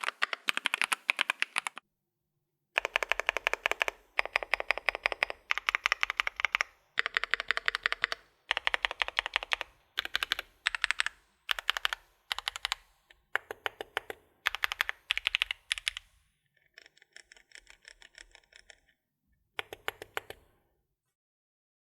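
Typing on a Createkeebs Thera 75 v2 gasket-mount keyboard with a PC plate, factory-lubed 55 g Lotus switches and GMK keycaps: fast runs of keystrokes in bursts a second or two long with short pauses between. A softer stretch of lighter keystrokes comes near the end, then one last burst and the typing stops.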